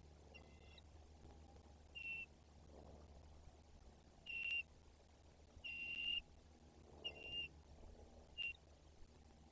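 Bald eagle calls: six short, high, piping whistles, each held at one pitch, coming at irregular intervals of about a second or more.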